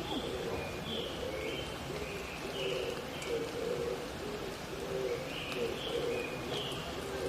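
Wild mountain dove (oriental turtle dove) cooing: a low phrase of repeated notes going on and on. A smaller bird's high chirping phrases come in twice over it, against a steady hiss of rain.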